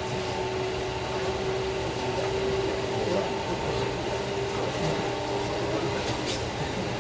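Inside an electric train carriage on the move: a steady running rumble with a constant electric hum. A brief sharp tick comes about six seconds in.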